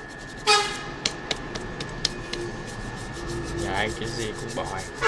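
A short vehicle horn toot about half a second in, then a run of small sharp ticks and taps as a tool is worked over a metal IC reballing stencil. A faint steady high-pitched whine runs underneath.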